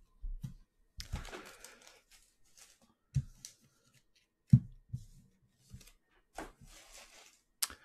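Trading cards being handled at a table: rustling as cards slide over each other, with scattered clicks and a few knocks on the tabletop, the loudest about four and a half seconds in.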